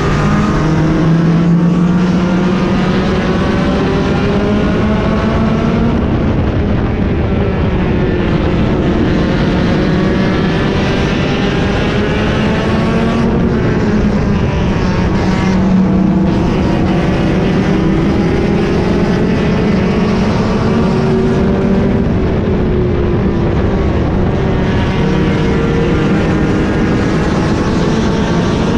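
Race car engine at racing speed, heard from on board, its revs rising and falling again and again through the turns and straights.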